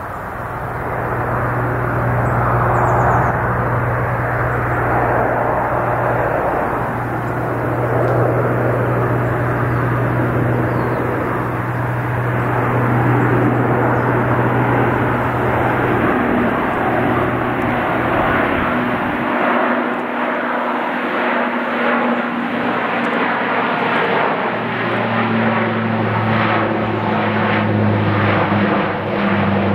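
Lockheed C-130J Super Hercules flying past, its four turboprops with six-bladed propellers giving a steady low drone over a rush of engine noise. The drone fades for a few seconds past the middle and comes back strong near the end.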